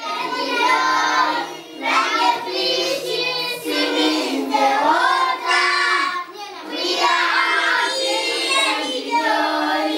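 A group of schoolchildren singing together in phrases, clapping along.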